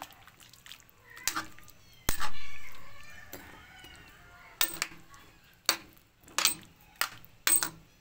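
Stirring utensil knocking against a metal cooking pan while stirring a chunky stew, about seven clanks. The loudest, about two seconds in, rings on for a couple of seconds.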